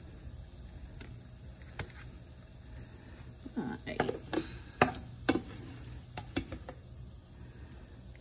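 Cooked zucchini and squash being spooned into a plastic meal-prep container: a scattered run of clicks and knocks of a utensil against the plastic, busiest in the middle.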